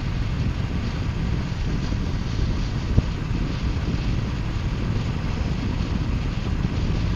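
Triumph Bonneville T120's 1200 cc parallel-twin engine and exhaust running steadily at highway cruise, mixed with wind noise on the microphone. A single short tap about three seconds in.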